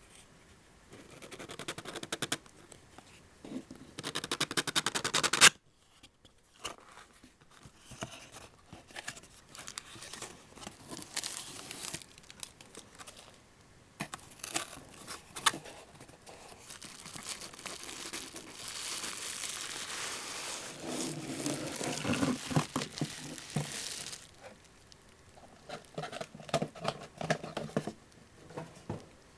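Packaging being unwrapped: wrapping crinkles and tears in irregular bursts. A loud rip stops sharply about five and a half seconds in, and a longer spell of steady rustling comes later.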